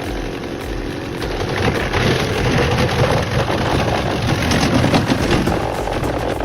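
Heavy machinery running at work: a loud, steady engine with dense, irregular mechanical noise over it.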